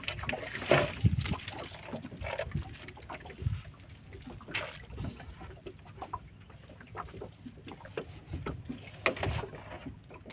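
Scattered knocks and light clicks, loudest about a second in and again about nine seconds in: metal fishing hooks, swivels and lures clinking as they are handled in a cut-down plastic jug on a small boat's deck.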